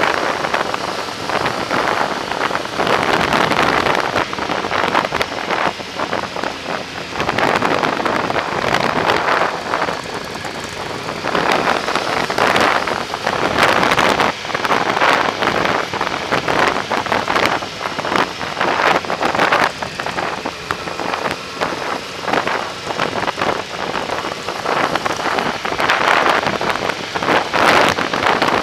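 Wind buffeting the microphone of a camera on a moving Yamaha motorcycle, rising and falling in gusts, over the steady running of the bike's engine at cruising speed.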